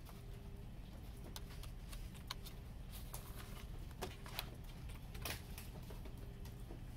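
Handling a plastic CD jewel case: a handful of sharp clicks and taps as the disc is set onto the case's hub and the paper booklet is laid in, over a low steady hum.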